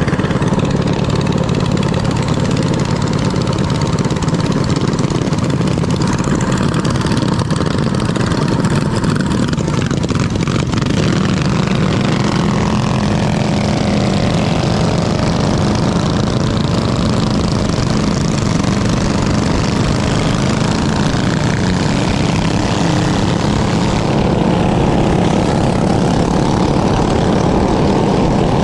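Minibike's small gasoline engine running steadily, its pitch shifting up and down somewhat partway through.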